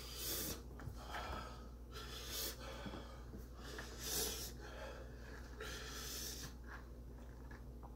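A man breathing hard, with forceful breathy exhales through the mouth every second or so and a longer one about six seconds in, as he suffers the burn of an extremely hot chili chocolate bar.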